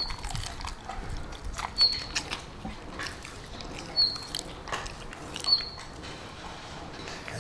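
Rottweiler chewing chicken feet: scattered sharp crunches and wet mouth clicks. A short high chirp recurs about every two seconds.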